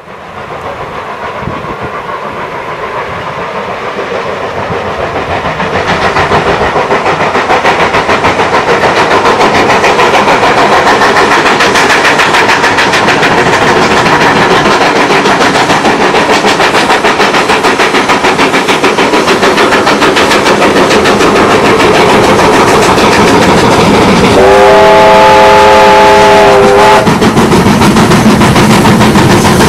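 Steam locomotive approaching with its exhaust beats in rapid succession, growing louder over the first several seconds. About 24 seconds in, its whistle sounds once for a couple of seconds.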